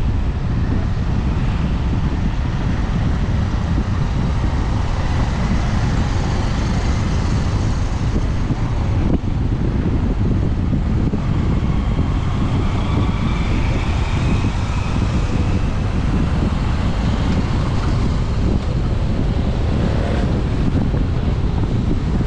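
Wind buffeting the microphone of a moving vehicle, over a steady rumble of road and traffic noise, with a faint whining tone that wavers up and down about halfway through.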